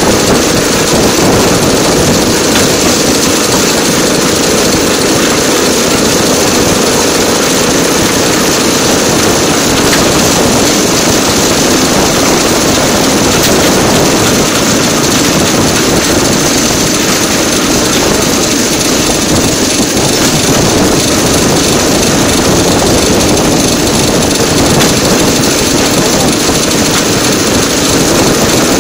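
DL2 motor draisine running along the track: steady engine noise mixed with the rumble of its wheels on the rails.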